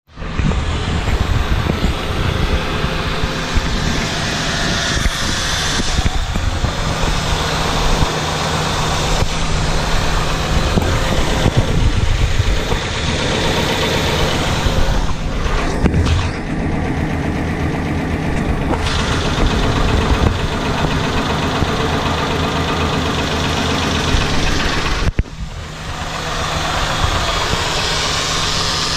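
Ford F-250's 6.8-litre V10 engine running steadily with a ticking knock that new ignition coils and spark plugs have not cured; its cause is unknown to the owner. The sound drops briefly about 25 seconds in.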